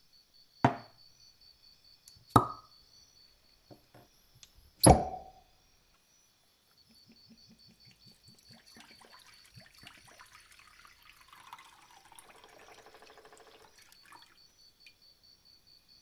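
Glass bottles set down on a workbench three times, each a sharp clink with a brief ring, the last the loudest. Then liquid is poured from two glass bottles into a plastic tray for about seven seconds, splashing and glugging.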